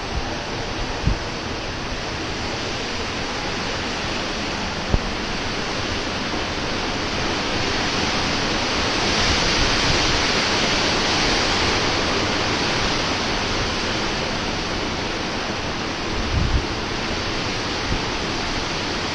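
Hurricane wind and rain, a steady loud rushing that swells about halfway through, with a few brief low gusts buffeting the microphone.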